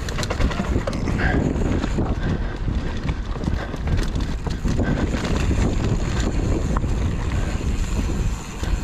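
Wind buffeting the microphone over the rumble and rattle of a mountain bike rolling down a dirt singletrack trail, with small clicks and knocks as the tyres run over roots and rocks.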